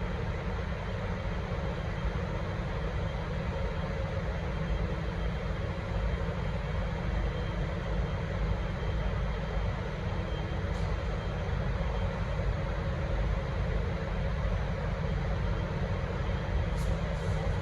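Diesel-electric locomotive's engine running steadily with a deep, even drone and a faint steady hum. Two brief faint ticks come near the middle and near the end.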